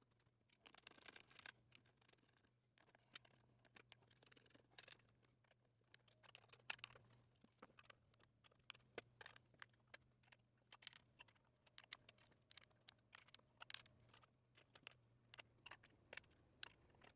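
Faint, irregular clicks and scrapes of an Allen wrench turning screws to fasten a gaming chair's tilt mechanism to the seat, over a faint steady low hum.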